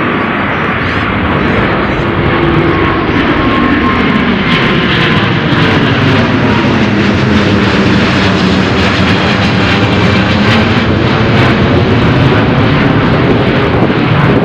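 Jet airliner's engines at take-off power as it climbs out low overhead: loud, steady rushing noise that builds a little, with a tone that slowly falls in pitch.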